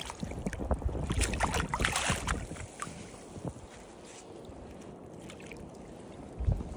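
Water splashing and sloshing at the side of a kayak as a released fish is held in the sea to revive, busiest in the first two or three seconds with short splashes and knocks, then a quieter wash of water. A low thump sounds near the end.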